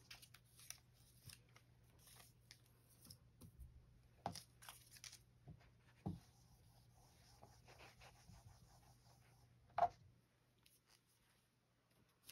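Paper labels and a paper cutout being peeled off a whiteboard, then a dry-erase eraser rubbing across the board. Faint, with a few light knocks, the sharpest about ten seconds in.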